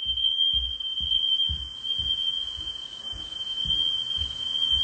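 Smoke alarm sounding one continuous high-pitched tone, set off by cooking smoke rather than a fire. Low thuds about twice a second sit beneath it.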